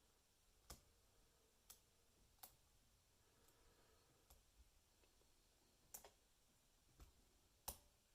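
Faint, sharp clicks of a lock pick working the spool pins inside a heavy brass Lockwood 334B45 lock: about eight separate clicks at uneven intervals, two of them close together near the middle.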